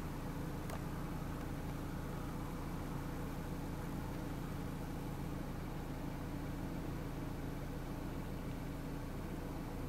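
Steady low mechanical hum under a light hiss, unchanging throughout, with one faint click about a second in.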